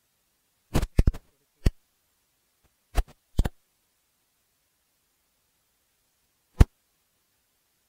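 A handful of short, sharp clicks with dead silence between them: several close together in the first two seconds, two more about three seconds in, and a last one near the end.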